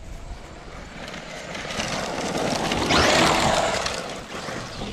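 Electric RC truck speeding past on dirt, its tyres spraying dirt and gravel; the sound grows to its loudest about three seconds in as it passes close, then fades away.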